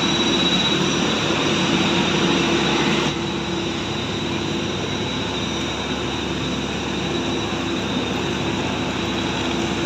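Jet aircraft noise on the apron: a loud steady rushing hiss with a high, unwavering whine and a low hum, easing a little about three seconds in.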